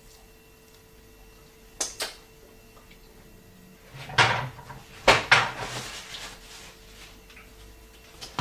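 Kitchen cupboard doors or drawers being opened and shut. There are two quick clicks about two seconds in, then a knock followed by a longer clatter and scrape from about four to six seconds, and one more click near the end.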